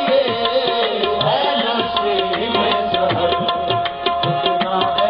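Qawwali music: harmonium playing a wavering melody over a held note, with tabla drumming in a steady rhythm.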